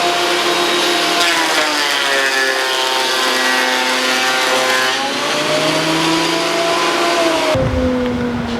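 Thickness planer running with a board feeding through: its motor and cutterhead pitch sag about a second in as the knives take the cut under load, then climb back up about five seconds in as the board clears. Near the end the high hiss drops off suddenly.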